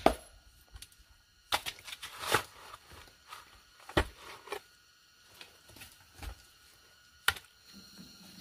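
A hoe chopping and scraping into dirt and stones: irregular sharp strikes a second or more apart, with a longer scrape about two seconds in.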